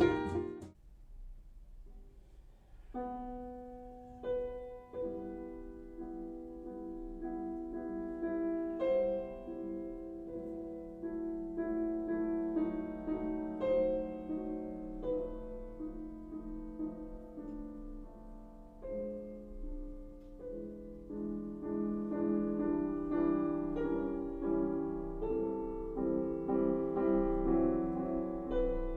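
Recorded solo piano music played back through a NAD 3020 amplifier and speakers; the piano begins about three seconds in after a short quiet gap and grows fuller towards the end.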